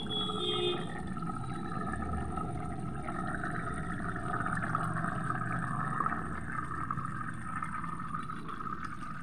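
Thick fish curry bubbling as it simmers in a kadai, with a steady hum underneath.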